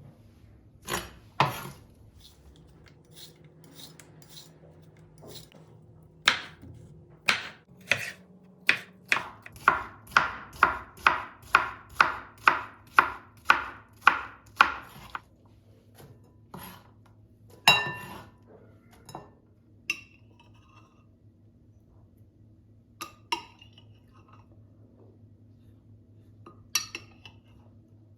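Hard knocks and clinks of kitchen utensils and dishes: a few scattered strikes, then a regular run of about a dozen strikes at roughly two a second in the middle, then a few more clinks near the end. A low steady hum runs underneath.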